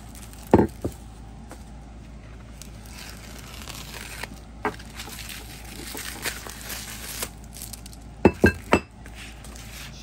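Plastic and foam wrapping rustling as metal bars are unwrapped, with two sharp knocks about half a second in as a bar is handled and set down. Near the end come three quick sharp clinks with a short ring, like the bars tapping against each other.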